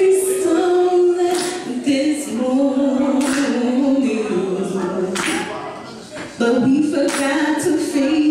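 A woman singing a slow song live into a microphone, holding long notes that glide between pitches, with a short break in her voice about six seconds in.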